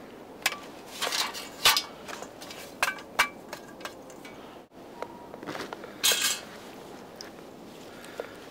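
Metal objects being handled: a series of short, sharp clinks and knocks at irregular intervals, the loudest about two seconds in and again around six seconds.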